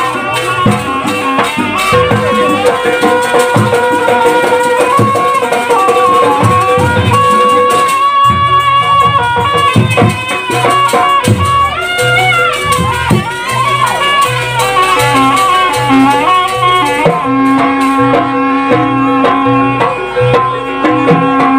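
Javanese jaranan ensemble playing a fast sampak piece: a reedy slompret shawm wails a wavering melody over kendang drum strokes and the steady ring of gongs and kenong, played loud.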